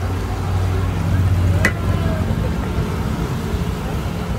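Steady low rumble of street traffic with voices in the background, and a single sharp click about one and a half seconds in.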